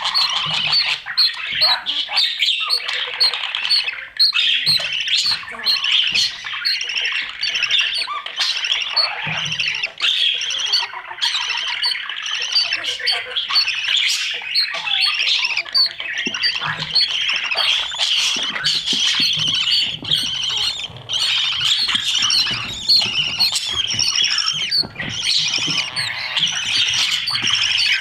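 Budgerigars inside a nest box squawking and chirping without pause, a dense chatter of quick, overlapping high calls.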